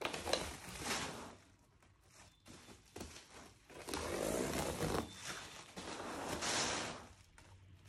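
Kitchenware being handled: several swells of scraping and rubbing with a few light knocks between them.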